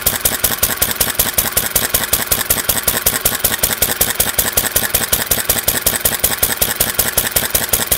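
IHC McCormick-Deering 1-1/2 HP single-cylinder stationary gas engine running at a steady speed, firing with a rapid, even beat.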